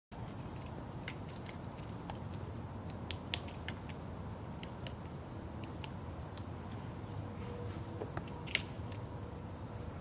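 Irregular sharp taps of pileated woodpeckers pecking and prying at an ash trunk for ash borer larvae, one louder than the rest near the end, over a steady high insect chorus.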